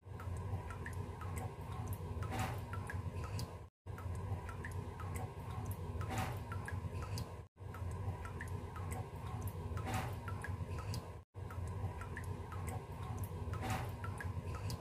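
Water dripping fast from a leaking sink faucet: many small quick drips over a steady low hum, with one louder drop or splash about every four seconds. The same few seconds of dripping play four times, broken by short silent gaps.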